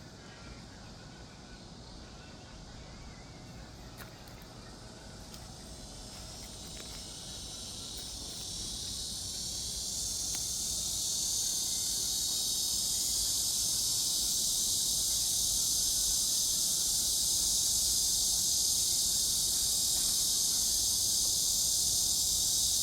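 Insects buzzing in a dense high-pitched chorus that swells over several seconds, about a third of the way in, and then holds loud and steady.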